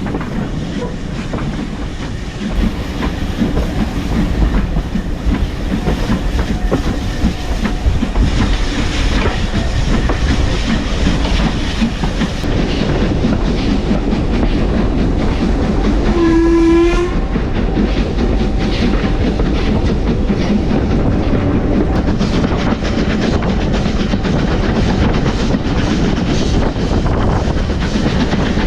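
Steam train running along the line, hauled by Ivatt Class 2MT 2-6-0 No. 46447, with the wheels clattering steadily over the rail joints. One short steam whistle blast sounds a little past halfway.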